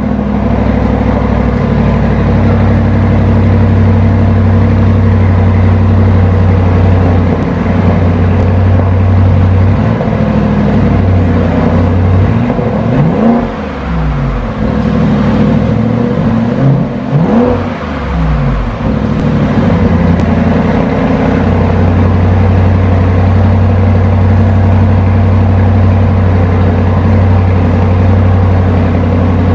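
2022 Audi SQ7's 4.0 TFSI twin-turbo V8 on its stock exhaust, idling steadily. From about ten seconds in it is blipped several times in quick revs that rise and fall, then settles back to a steady idle for the last ten seconds.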